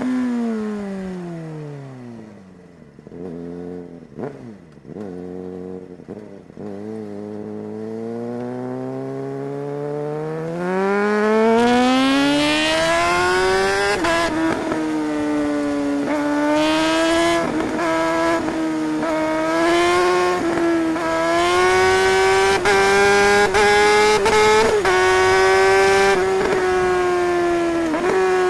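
Suzuki GSR 600's inline-four engine. The revs fall steeply off the throttle in the first few seconds, with a few brief rises while it runs low and quieter. Then it climbs steadily in pitch under acceleration and holds high revs with small dips for the rest.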